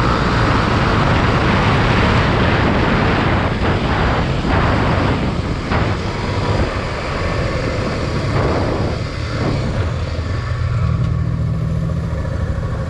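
Honda XR250 Tornado's single-cylinder engine running while the bike is ridden, with heavy wind noise over the microphone in the first half. A steadier low engine note comes through in the last few seconds.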